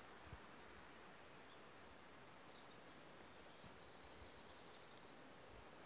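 Near silence: a faint, steady hiss of outdoor ambience.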